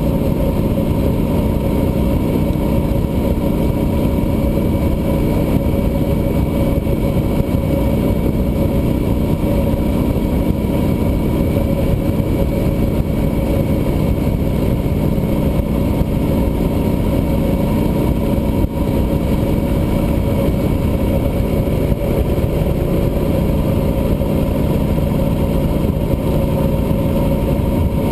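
Cruiser motorcycle engine running at a steady highway cruise, mixed with rushing wind noise on the camera microphone; the sound stays level with no change in pitch.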